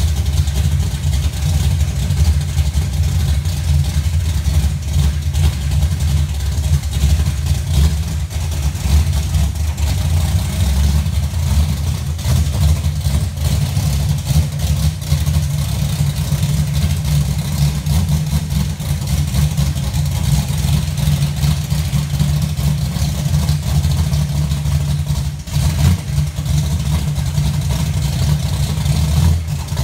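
Big-block Chevrolet V8 in a second-generation Camaro idling loud and steady, with a short dip near the end.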